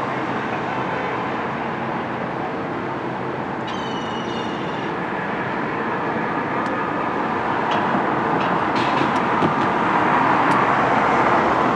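Steady rumble of passing vehicle traffic, with a brief high squeal about four seconds in and a few sharp ticks later on.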